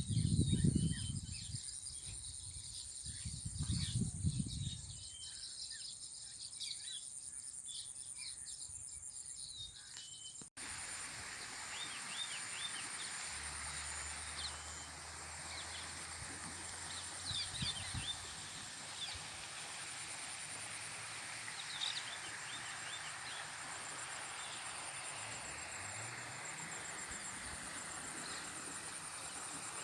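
Evening outdoor ambience: a steady high-pitched insect trill, as of crickets, with scattered bird chirps. Two low rumbles in the first few seconds.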